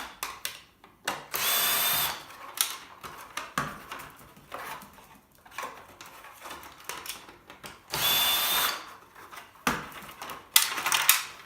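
Cordless drill-driver whirring in short bursts, two longer ones and a couple of brief ones near the end, with clicks and knocks of screws and metal parts between, as screws are driven out to free a circuit board from a paper shredder.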